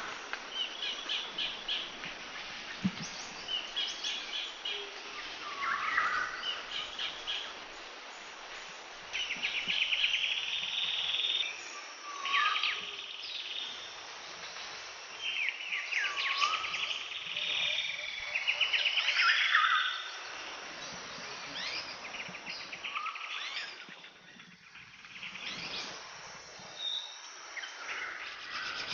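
Several birds calling and singing together: rapid chattering trills and short whistles that fall in pitch, one after another, over a steady background hiss.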